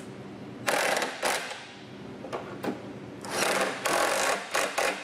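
Power driver with a socket tightening nuts onto bolts through cedar log boards, run in two bursts of about a second each, then a few quick short pulses near the end as the nut snugs down.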